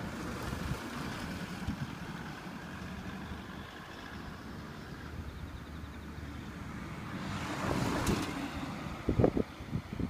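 Outdoor street ambience: a steady rush of wind on the microphone with traffic noise, a vehicle passing that swells and fades about eight seconds in, and a few low thumps near the end.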